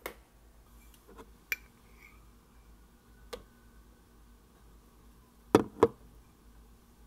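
Light clicks and taps of metal spoons against a plastic food-processor bowl and against each other as tahini is spooned in, with two louder knocks in quick succession about five and a half seconds in.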